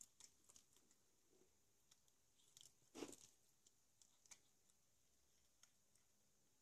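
Very faint sounds of cats eating wet food from ceramic bowls: scattered small clicks of chewing and licking, with one slightly louder crunch about three seconds in.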